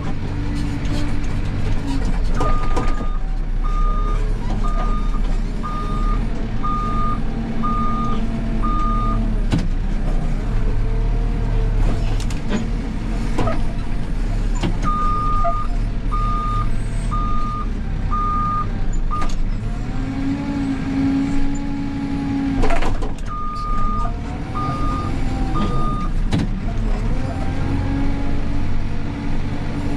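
Backhoe loader's diesel engine running under load, its pitch rising and falling as the machine works, with the reversing alarm beeping in three bouts: each a long beep followed by short beeps about once a second.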